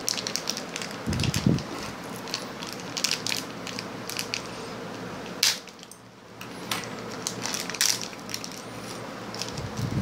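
Crinkling and crackling of a small plastic packet as hands handle it and open it to get at a BNC connector, a run of irregular clicks and rustles with a low thump about a second in.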